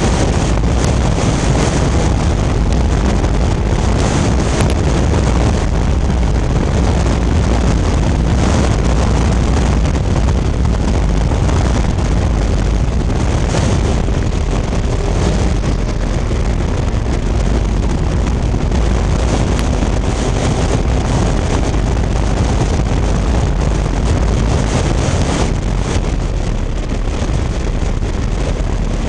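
Vintage Fiat race car's engine running at racing speed, heard from on board, loud and steady, with wind rushing over the microphone.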